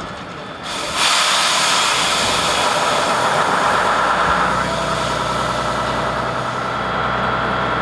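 Avro Vulcan bomber's Olympus jet engines starting up. A sudden loud rush of air hits about a second in and holds steady, then settles into an even running whine over a low hum.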